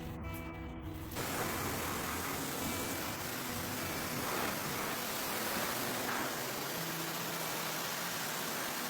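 A steady, even hiss of a detailing spray or air jet, starting suddenly about a second in, with music faintly underneath.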